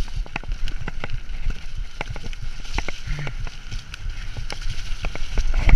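Mountain bike riding down a muddy woodland trail: a steady low rumble of wind and tyre noise on the mount-fixed camera's microphone, with irregular clicks and clacks from the bike rattling over bumps.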